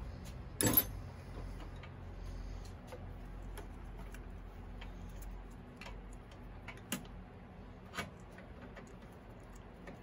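Clicks and taps of a rectifier unit and its wire connector being handled and fitted into place on a motorcycle, with a sharp clatter just under a second in and a few single clicks later.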